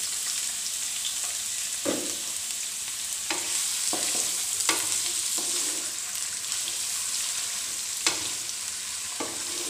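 Sliced onions sizzling in hot oil in a non-stick kadhai, a steady hiss. A spatula stirring them scrapes and knocks against the pan about six times.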